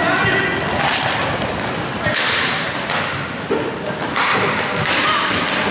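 Inline roller hockey play echoing in a sports hall: about four sharp knocks and cracks of sticks hitting the puck and thuds against the boards, over the steady rolling of skate wheels on the court.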